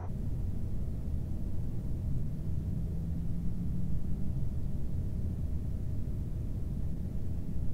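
A steady low rumble with a faint, even hum above it.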